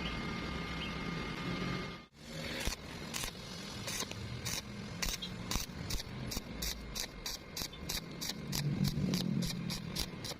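Welder working on thin sheet metal in short repeated bursts of arc crackle, the stitch-welding way of bridging a wide gap without burning through. The bursts come faster toward the end, after a steady hum in the first two seconds.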